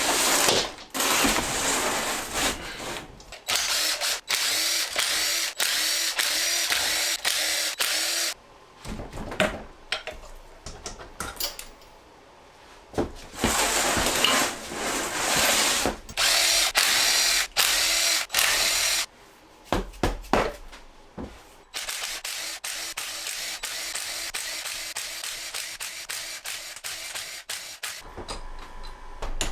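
Cordless power drill/driver run in several bursts of a few seconds each, with short pauses between, as bolts are backed out during a motorcycle engine teardown.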